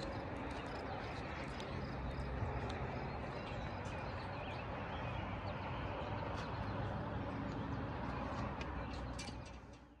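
Outdoor ambience on an elevated boardwalk: footsteps on the deck boards over a steady background hiss, with short bird chirps throughout. Fades out just before the end.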